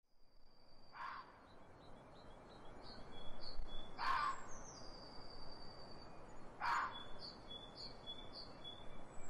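Birdsong: high whistled notes, some held and some in quick repeated series, with three short harsh sounds about one, four and nearly seven seconds in.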